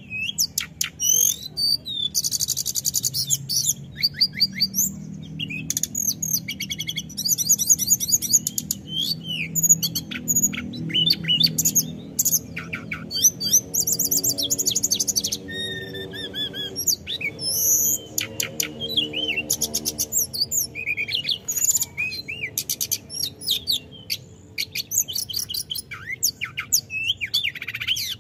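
Hill blue flycatcher singing a long, varied rolling song of fast trills, chirps and whistled notes, almost without pause.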